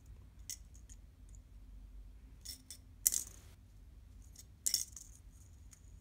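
Plastic fidget spinner clattering and rattling on a tile floor as a cat bats it with its paw: a few short, sharp clicks, with the longest rattle about three seconds in and another near the end.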